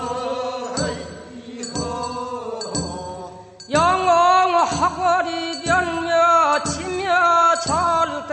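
Gyeongsang-province Korean funeral bier song (sangyeosori), sung in slow, chant-like phrases about a second long. The singing grows louder, with a wavering pitch, about halfway through.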